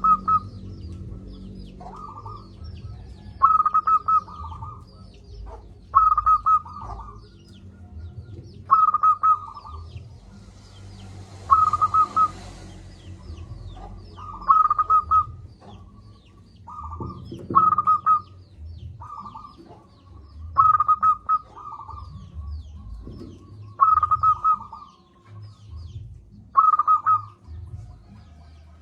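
Zebra dove (perkutut) cooing: short stuttering phrases of rapid coo notes, repeated every two to three seconds, about a dozen times. Faint high chirps of other small birds run underneath, and there is a low rumble.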